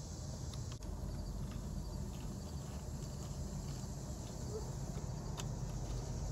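Steady low background hum with faint insect chirping, broken by a few light clicks about half a second and one second in, and again near the end.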